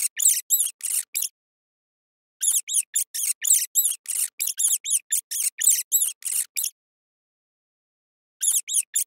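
Hamster squeaking: quick runs of short, high-pitched squeaks, several a second, each one rising and falling in pitch. The calls come in three bursts separated by short silences, the middle burst the longest.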